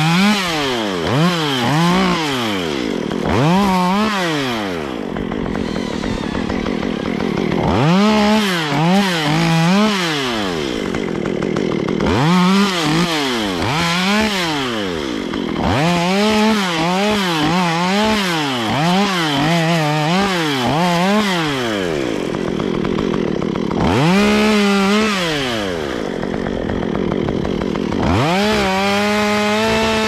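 Stihl MS 193 two-stroke chainsaw cutting through small trees and branches, its engine speed rising and falling over and over, every second or two, with a few short stretches held at full throttle.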